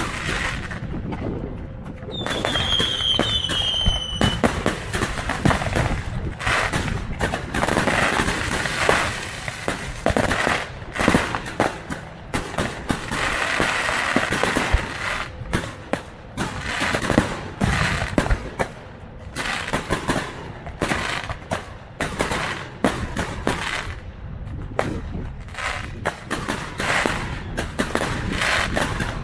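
Fireworks display: a long run of aerial shell bursts with rapid bangs and crackling, denser in stretches. About two seconds in there is a high whistle that falls slightly in pitch over about two seconds.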